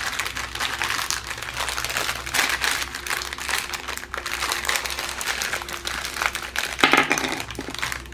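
Plastic packaging crinkling and rustling as it is handled, with a louder crackle about seven seconds in, over a low steady hum.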